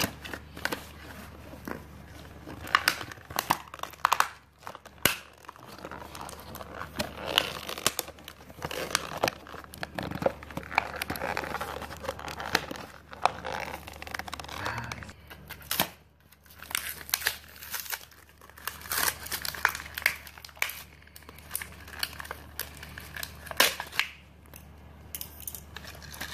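Clear plastic blister packaging crinkling and crackling as it is cut with scissors and torn open by hand, with many irregular sharp snaps and clicks.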